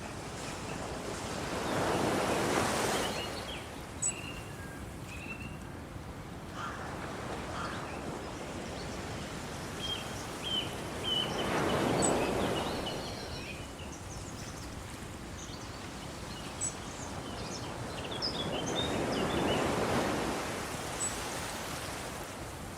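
Waves washing in on the shore in three slow swells, each rising and falling over a couple of seconds, with small birds chirping now and then.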